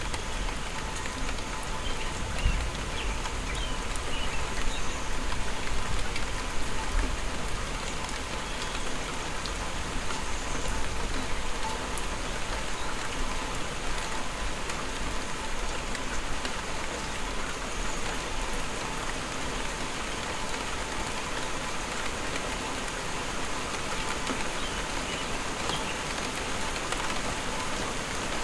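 Steady rain falling on grass, trees and a dirt road, an even hiss throughout, with a low rumble during roughly the first eight seconds.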